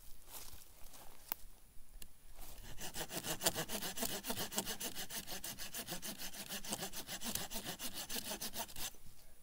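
Hand saw cutting through a dead branch with fast, even back-and-forth strokes. They start about two and a half seconds in, after a few light knocks from handling the wood, and stop suddenly near the end.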